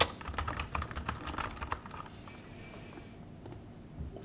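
Typing on a computer keyboard: a quick run of keystrokes over about two seconds, then a couple of single clicks near the end.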